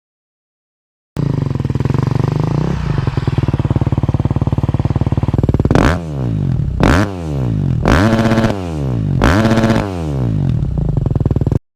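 250cc four-stroke motocross bike engine idling, then blipped four times, each rev rising sharply and dropping back to idle, the last two held a little longer. The sound starts and stops abruptly at edit cuts.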